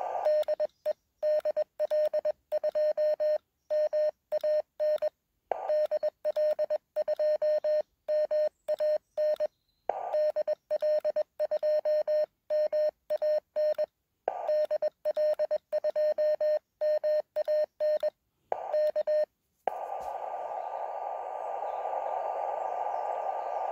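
Morse code sidetone from a (tr)uSDX QRP transceiver transmitting CW: one steady beep keyed on and off in dots and dashes, with dead silence between them while the receiver is muted. About twenty seconds in it switches back to receive, and a narrow band of filtered static hiss takes over.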